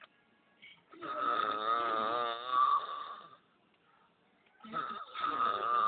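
A person snoring in two long, wavering snores, the first about a second in and the second starting near the end.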